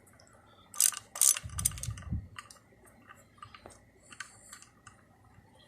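A few light metallic clicks and scrapes, then faint scattered ticks, as a steel 1/4-20 grade 8 bolt is turned into a freshly retapped engine-mount hole.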